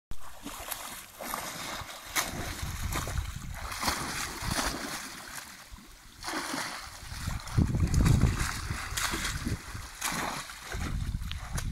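German Shepherd dog swimming through a shallow stream, its paddling churning and splashing the water irregularly, loudest about eight seconds in.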